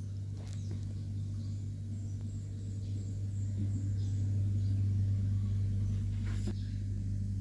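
A steady low mechanical hum, swelling slightly in the middle, with faint clicks about half a second in and again near the end.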